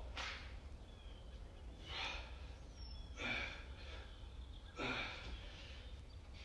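A man breathing hard under exertion, four heavy breaths roughly a second and a half apart, in time with the reps of overhead squats.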